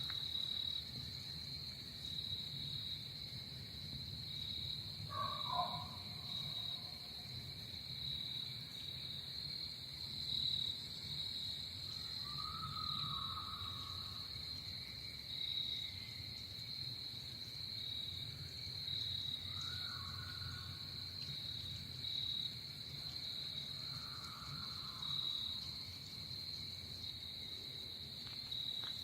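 Night-time forest ambience: a steady high-pitched insect-like chirring drone over a low rumble, with a few faint, short distant calls spaced several seconds apart.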